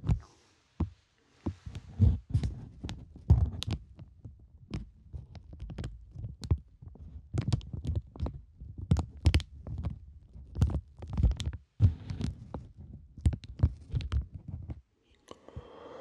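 Clear plastic cellophane crinkled and squeezed right at the microphone: rapid, irregular sharp crackles, many with deep thuds from handling against the mic. The crinkling stops about a second before the end.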